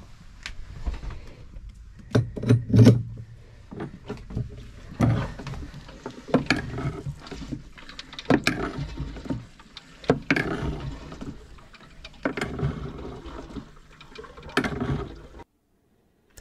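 Hand-operated diaphragm pump worked by a lever handle, one stroke about every two seconds, transferring diesel from the keel tank up to the day tank. The strokes stop abruptly near the end.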